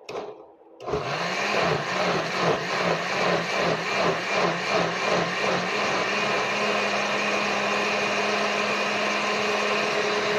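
Countertop blender motor starting about a second in and puréeing a chunky green tomatillo salsa. For the first few seconds its pitch dips and recovers over and over as the chunks are broken up. It then holds a steady pitch once the sauce is smooth.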